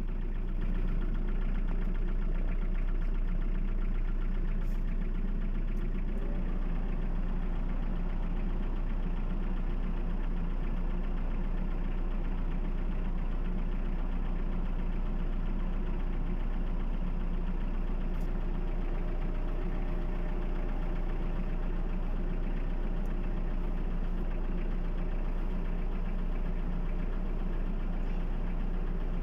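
Toyota 2C four-cylinder diesel engine idling steadily, with the usual diesel knock.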